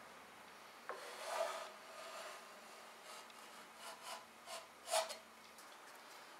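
Metal putty knife scraping along the edge of a wooden board, smoothing squeezed-out epoxy into the joint: a tap and a longer scrape about a second in, then a run of short scrapes, the strongest about five seconds in.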